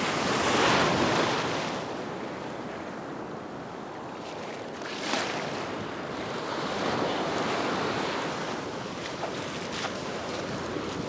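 Ocean surf breaking and washing up the beach, swelling loudest near the start and again in the second half, with wind buffeting the microphone. A brief sharp sound about halfway through.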